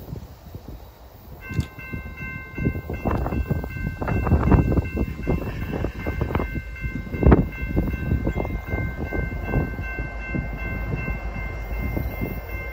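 Distant diesel locomotive's air horn sounding one long chord of several notes, starting about a second and a half in and held, over an irregular low rumble.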